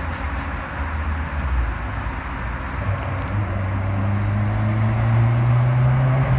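Turbocharged Fiat Punto T-Jet 1.4 engine pulling under throttle after a downshift, its note rising steadily in revs through the second half, with a faint high whine climbing with it.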